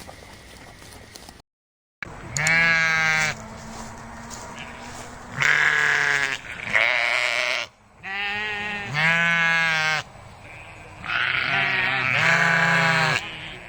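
Livestock bleating: about six loud, drawn-out calls, each roughly a second long, following a brief stretch of quiet background noise that cuts out about a second and a half in.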